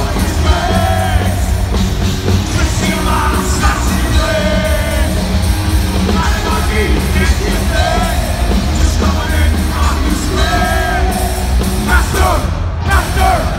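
Heavy metal band playing live at loud volume: distorted electric guitars, bass and drums, with a singer's voice over the mix in recurring sung lines every few seconds.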